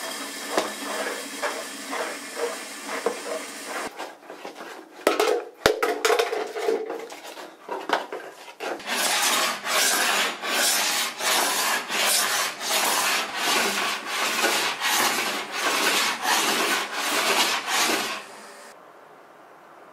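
Rough scraping strokes, uneven for the first several seconds, then settling into a steady rhythm of about two strokes a second from about nine seconds in; the sound drops low near the end.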